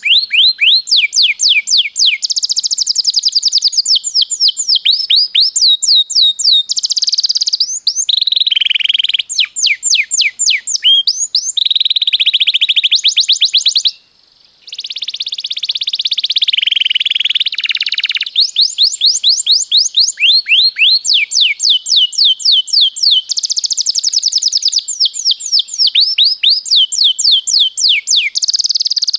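Domestic canary singing in full song: fast trills of repeated down-sweeping chirps alternating with dense, rolling warbles. The song breaks off for about half a second near the middle, then carries on.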